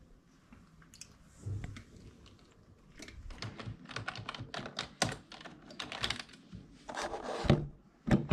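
Typing on a computer keyboard: a few scattered keystrokes, then a fast, dense run of key clicks from about three seconds in.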